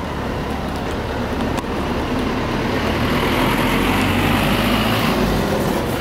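Car and road traffic noise: a steady rumble that grows louder from about two seconds in, peaking about four to five seconds in.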